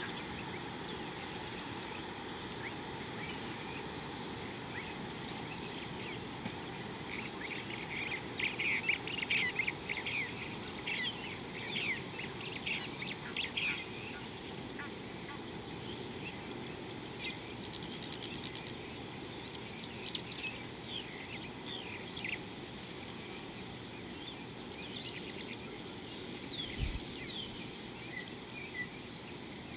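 Wild birds calling at a watering hole: a busy flurry of short, high chirps in the first half, thinning to scattered calls later, over steady outdoor background noise. There is one brief low thump near the end.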